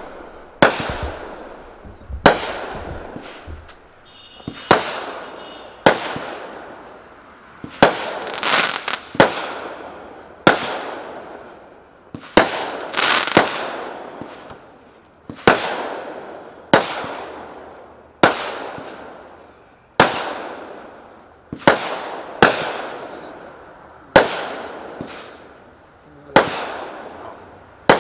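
Brothers Fireworks High Falutin 500-gram firework cake firing shot after shot: about twenty sharp bangs, roughly one every second or so, each trailing off quickly. The bangs come closer together about eight seconds in and again around thirteen seconds.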